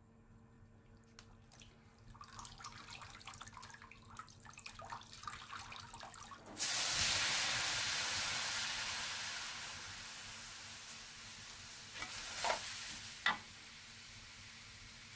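Soaked rice vermicelli going into a hot, dry wok: a sudden loud sizzle about six and a half seconds in that slowly dies down. Before it, a metal spatula scrapes and clatters lightly on the wok, and near the end there are two sharp spatula knocks.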